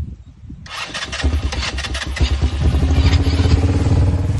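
A four-wheeler (ATV) engine comes in suddenly about a second in with some clatter, then settles into a steady running hum.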